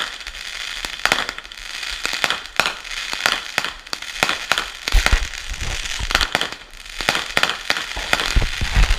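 Consumer fireworks going off in rapid, irregular sharp bangs and crackles, with a few deeper thumps about five seconds in and again near the end.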